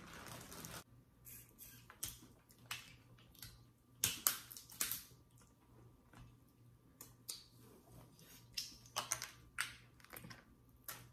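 Snow crab legs being cracked and picked apart by hand: irregular sharp cracks and small crackles of shell, the loudest cluster about four seconds in.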